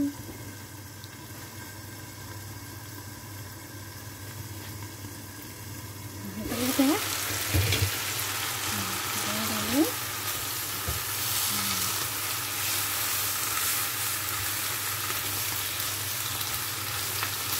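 Bok choy and mushrooms frying in a wok, muffled under the lid at first. The sizzle jumps up suddenly about six seconds in as the pan is uncovered, then holds steady while the vegetables are stirred with a spatula.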